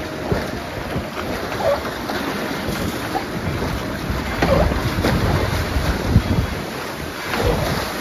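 Rushing water churning along a log flume channel as the log boat rides through it, with wind buffeting the microphone in low rumbling gusts.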